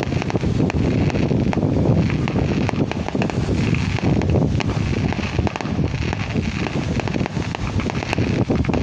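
Wind buffeting the microphone: a steady, rumbling noise with many small clicks and pops scattered through it.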